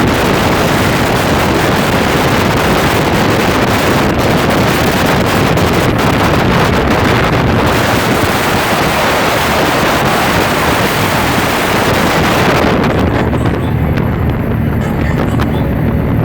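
Speedboat running at speed: heavy wind buffeting the microphone over the engine and rushing water. About twelve and a half seconds in, the wind hiss drops away abruptly, leaving a lower engine rumble.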